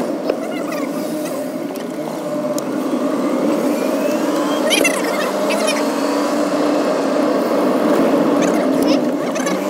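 Car engine and road noise heard from inside the moving car's cabin, a steady hum.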